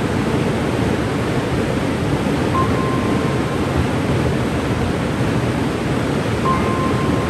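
Cane River Falls waterfall rushing, a loud, steady wash of falling water. Twice a faint single high note is held for about a second over it.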